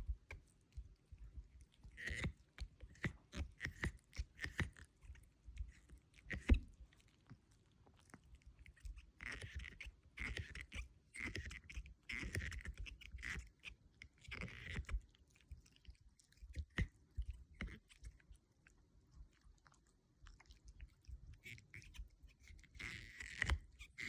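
Chihuahua puppy chewing and biting on a chew toy: irregular bursts of chewing noise from the toy, with brief pauses between them and a longer lull past the middle.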